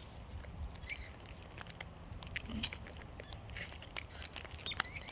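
Birds eating seed: irregular small clicks and crunches of beaks cracking seed, with a few faint chirps and one louder click near the end.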